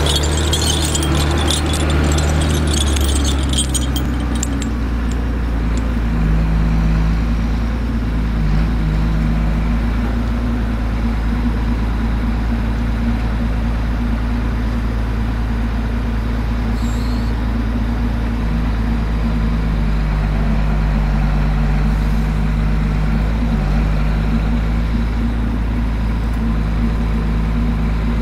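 Skogsjan forestry harvester's diesel engine running steadily, its note shifting up and down every few seconds as the machine works. A crackling rattle sits over the engine in the first few seconds.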